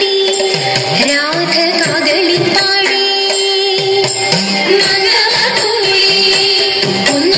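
Thiruvathira song with singing over a steady held note, playing for a Kerala women's group dance.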